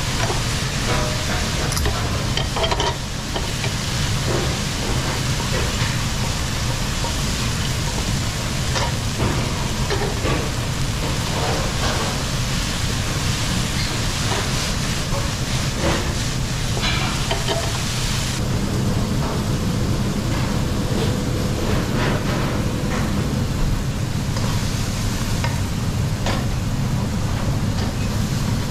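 Food sizzling in a pan while being stirred, with short clicks and scrapes of the utensil, over a steady low hum. The sizzle thins out about two-thirds of the way through.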